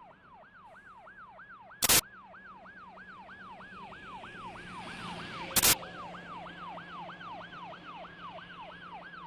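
Emergency vehicle siren in a fast yelp, each cycle jumping up and sliding down in pitch, about three cycles a second. Three sharp, loud clicks cut through it about four seconds apart.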